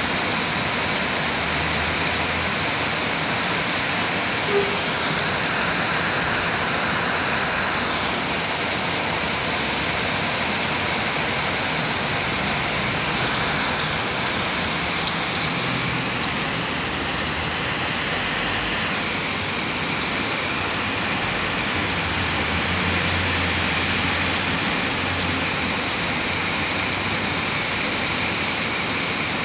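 Heavy rain pouring steadily onto a street and pavement, a constant hiss, with cars passing on the wet road and a low vehicle rumble in the second half.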